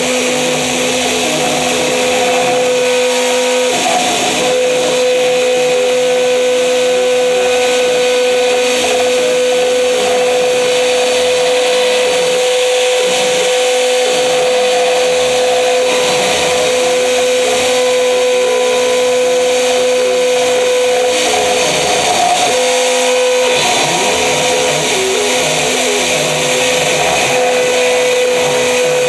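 CNC router spindle running and cutting a carving: a steady high whine over a constant buzzy cutting noise, with the whine dipping briefly a couple of times.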